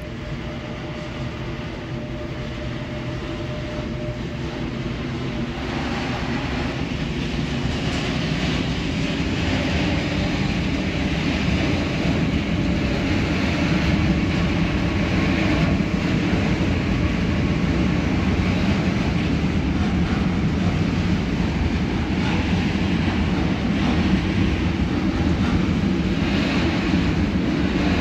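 Freight train hauled by an electric locomotive passing through a station, its wagons' wheels rumbling steadily on the rails. The noise grows louder over the first ten seconds or so, then holds steady as the wagons roll by.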